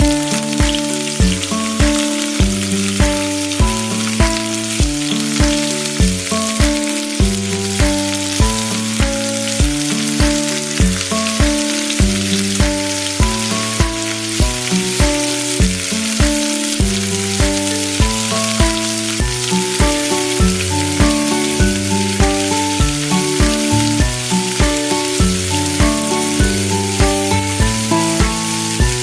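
Food sizzling as it fries in a pan, under background music with a steady beat.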